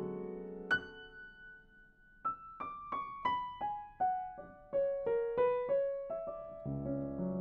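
Solo upright piano playing. A held chord fades away, a single high note sounds under a second in, then from about two seconds in a run of single notes steps downward, and fuller chords come back in near the end.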